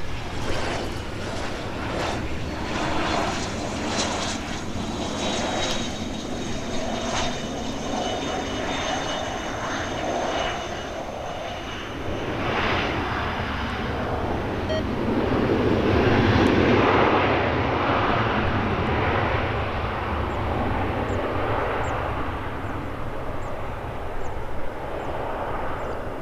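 Twin turbofan engines of a Cessna 680 Citation Sovereign business jet during its landing rollout: a steady jet rush with a high whine over it. The noise swells louder about two-thirds of the way through, then slowly fades as the jet rolls away down the runway.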